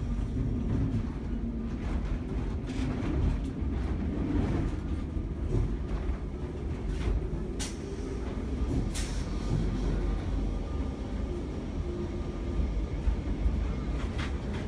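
Vintage Lisbon tram running along street rails, heard from inside the wooden car: a steady low rumble with body rattle and a few sharp clanks.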